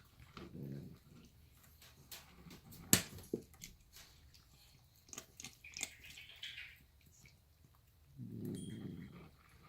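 Melanistic savannah cat growling low while eating: a short growl near the start and a longer one near the end, with chewing and small clicks between and one sharp click about three seconds in.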